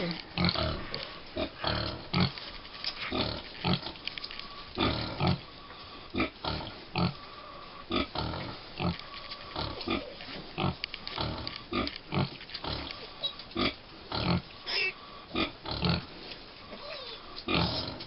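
American Guinea Hog sow grunting in short, repeated grunts, one to two a second, as her five-week-old piglets nurse: the rhythmic grunting a sow gives while suckling her litter. A few brief high piglet squeaks come in now and then.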